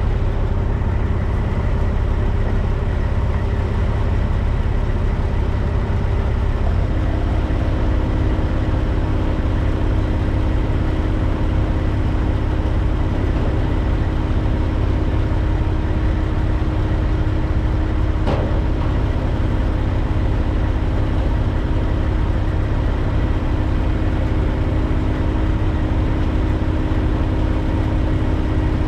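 Kubota excavator's diesel engine running steadily with a low drone. About seven seconds in a steady hum joins it and holds, and there is a single sharp click about 18 seconds in.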